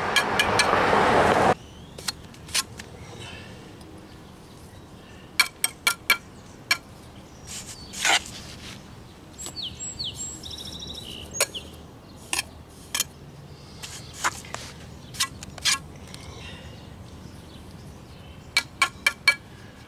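Steel brick trowel clinking and scraping against red brick as mortar is struck off a freshly laid course and the bricks are tapped into line: scattered sharp, ringing taps, a few in quick clusters near the end. A loud rushing noise fills the first second and a half and cuts off abruptly.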